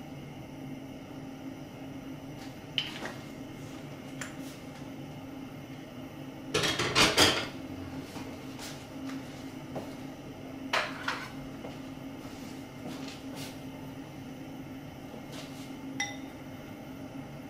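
Kitchen clatter of dishes and utensils over a steady low hum: a few light clinks, a louder clatter about seven seconds in, a quick double clink a few seconds later, and one more clink near the end.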